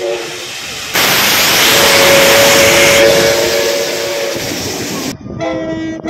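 Steam locomotive whistle blowing one long note over a loud rush of steam hiss. The hiss cuts off suddenly about five seconds in, and a diesel locomotive horn starts sounding near the end.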